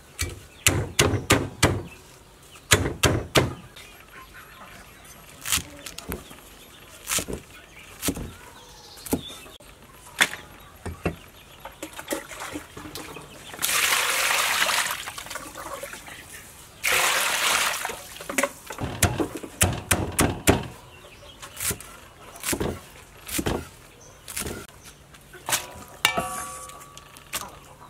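A cleaver chopping water spinach on a thick wooden chopping block, in quick clusters of sharp knocks. About halfway through, water is poured into a steel basin of cut spinach in two pours of a couple of seconds each. Scattered knocks follow.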